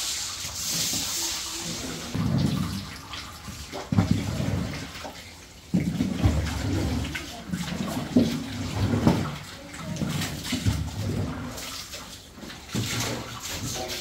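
Water gushing from a hose and splashing onto a concrete wall and floor, with a stiff broom scrubbing the wet floor and a few short knocks along the way.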